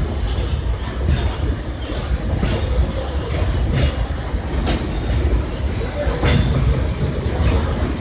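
Covered hopper wagons of a freight train rolling past close by: a steady heavy rumble, with a sharp clack from the wheels about every second or so.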